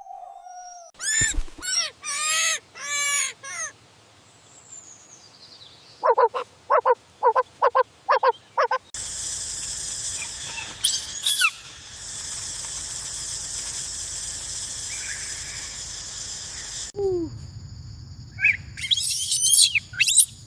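A series of animal calls: four drawn-out calls, then six short repeated ones, then more calls near the end. In the middle a steady high hiss runs for several seconds.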